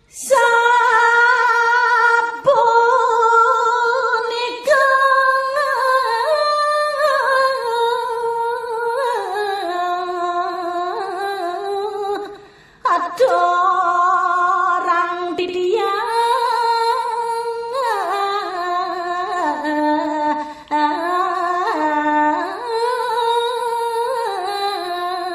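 A solo voice sings a verse of Balinese geguritan (tembang) unaccompanied, in long held vowels. Each phrase starts high and steps slowly down in pitch with small ornamental turns. The line breaks off briefly about twelve seconds in, then the singing resumes.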